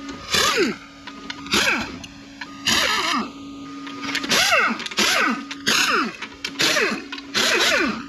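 Handheld power tool run in short bursts about eight times, its pitch falling as it spins down after each burst, as it backs out the transmission's many small bolts.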